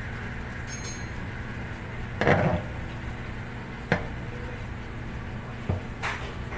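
A large kitchen knife chopping raw chicken wings on a cutting board: a few separate knocks of the blade against the board, the loudest and longest about two seconds in, with a short metallic ring about a second in. A steady low hum runs underneath.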